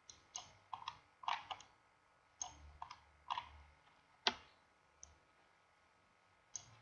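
Computer mouse clicking: about a dozen short, irregular clicks, some in quick pairs, the sharpest about four seconds in.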